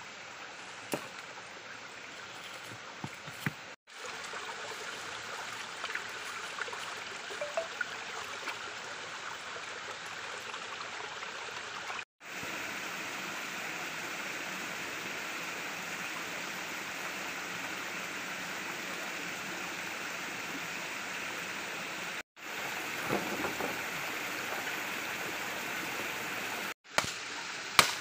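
Shallow stream flowing over rocks: a steady rush of water, broken off for an instant at a few edits, with a few faint knocks and a sharp knock near the end.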